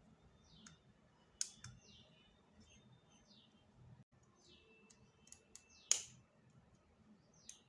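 Faint bird chirps, short high calls each sliding downward, repeated every second or so. A few sharp clicks come from handling the camera and its plastic packaging, the loudest about six seconds in.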